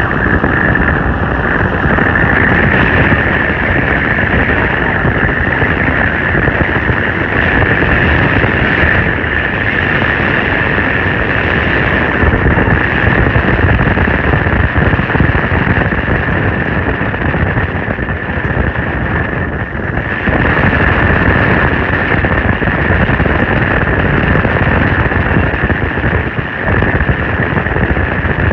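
Wind rushing and buffeting over the microphone at an open window of a moving vehicle, with road and engine noise underneath and a steady high-pitched tone riding over it; it eases briefly twice near the end.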